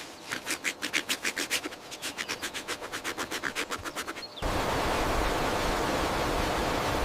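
Rapid scratching or rasping strokes, about seven a second. About four seconds in they cut off abruptly into a steady rushing noise.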